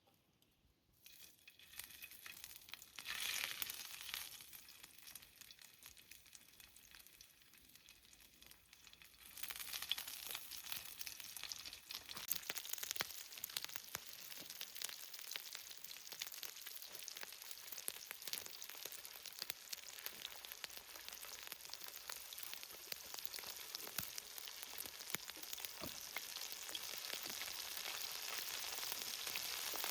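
Steady sizzling with fine crackles, as of food frying in a pan. It starts about a second in and grows clearly louder about nine seconds in.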